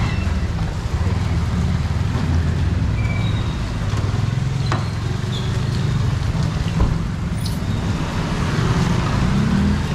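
Steady city street traffic: the low rumble of vehicle engines running close by, with a few faint clicks.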